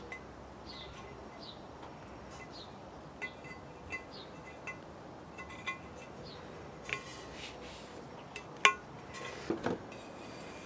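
Light metallic clinks and pings from hands and a small tool working a tyre valve into an alloy wheel rim, with one sharp, louder click about eight and a half seconds in and a few dull knocks just after. Small bird chirps come and go in the background.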